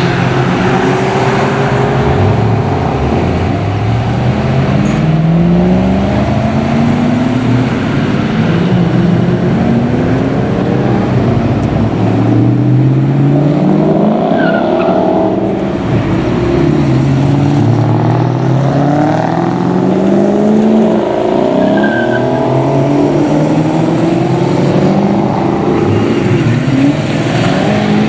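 A procession of Ford Mustangs pulling out one after another and accelerating away. Their engine notes overlap and climb in pitch again and again, dropping back between climbs as gears change.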